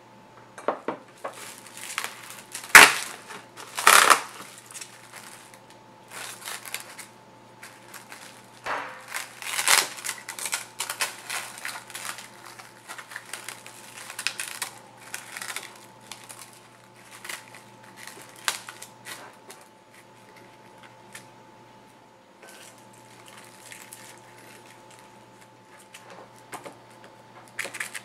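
Plastic cling wrap crinkling and rustling in irregular bursts as it is handled and pressed into a glass dish to line it, with the loudest sharp crackles a few seconds in.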